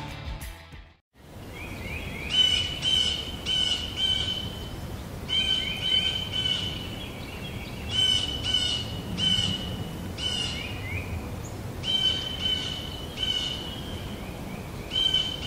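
A songbird calling in repeated phrases of three or four clear whistled notes. Each note slides up into a steady high pitch, and the phrases are separated by pauses of a second or two, over a steady background hiss. A music cue cuts out just at the start.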